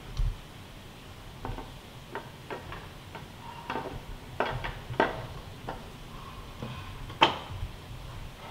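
Hard statue parts clicking and tapping together as a magnet-mounted wing piece is handled and fitted onto a Susanoo figure: a dozen or so scattered taps, with one sharper click about seven seconds in.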